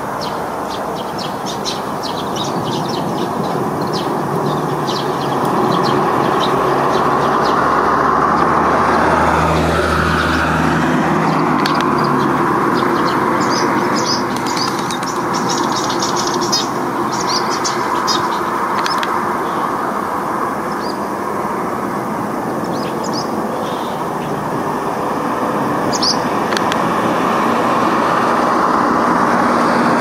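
A flock of Eurasian tree sparrows chirping in quick, short calls, thickest in the first half and again in the middle. Underneath runs a louder steady vehicle-traffic noise, with a heavy vehicle's low engine hum passing about nine to twelve seconds in.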